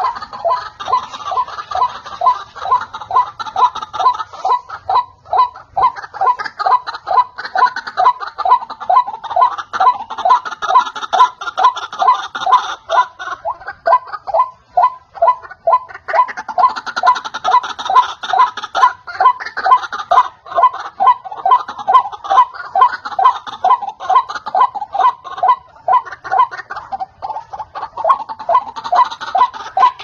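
White-breasted waterhen (ruak-ruak) calling: a long, loud run of rapid, repeated notes, several a second, that thins briefly about halfway. It is a recorded call played as a lure to draw in waterhens.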